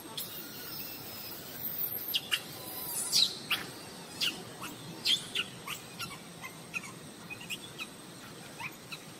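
Short, high chirping calls, about two a second, each sliding quickly down in pitch, over a steady outdoor hiss.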